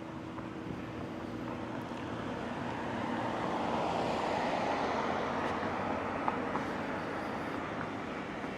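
A vehicle passing by: a broad rushing noise that builds, peaks about four seconds in, then slowly fades.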